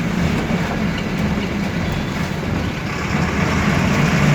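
Motor vehicle engine running steadily with a low hum, amid road noise.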